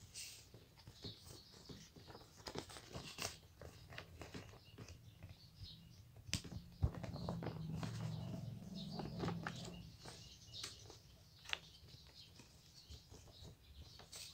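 Sheets of paper rustling and crinkling as they are handled, folded and creased by hand, with scattered small taps and crackles and one sharp click a little past the middle. A low drone swells for a few seconds in the middle.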